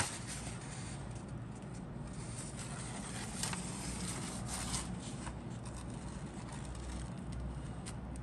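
Paper instruction sheet being handled and slid along: soft rustles and crinkles, with a sharp snap of the paper right at the start, over a steady low hum.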